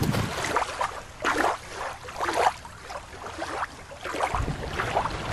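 Shallow water lapping and trickling at the shore's edge in irregular splashy washes. A low rumble comes in about four seconds in.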